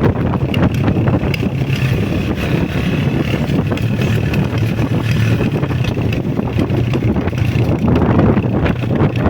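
Honda CG125 motorcycle's single-cylinder engine running steadily on the move, mixed with wind rushing over the microphone.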